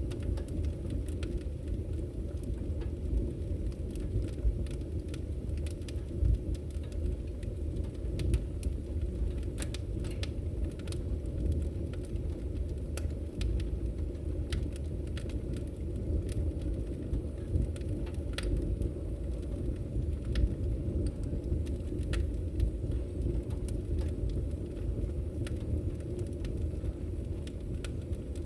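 Campfire burning: a steady low rush of burning wood with frequent scattered crackles and pops.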